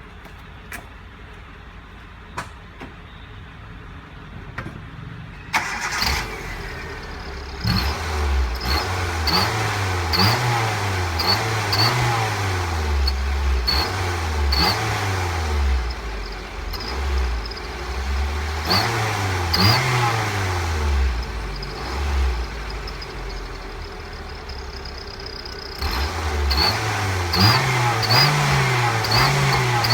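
Kia Morning engine started about five seconds in, then blipped up and down repeatedly at a standstill. It is fitted with a fake exhaust turbo whistle, and a thin high whistle comes and goes with the revs.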